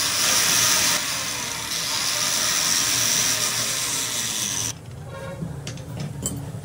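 A loud, steady hissing whir from a tool that stops suddenly about three quarters of the way through, followed by a few light clicks.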